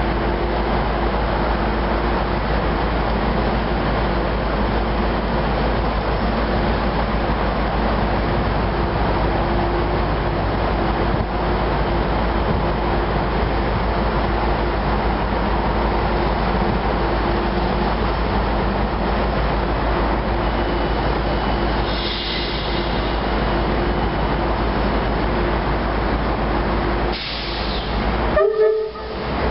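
Tri-Rail commuter train standing at the platform with its diesel locomotives running: a steady rumble with a constant hum. Near the end a short train horn toot sounds as the train readies to depart.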